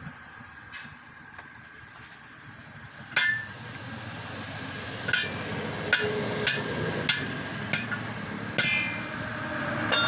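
Sledgehammer striking the steel rim of a truck wheel: clanging metal blows with a short ring. One heavy blow comes about three seconds in, then a run of about seven blows spaced half a second to a second apart.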